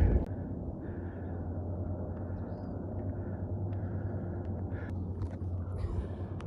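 Steady low outdoor rumble with a few faint taps and scuffs of footsteps on a rocky trail, mostly near the end.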